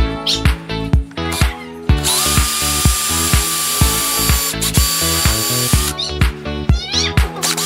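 Electric hand milling machine (handheld router) motor running with a steady whine, starting about 2 s in and stopping about 6 s in. Background music with a steady beat plays throughout.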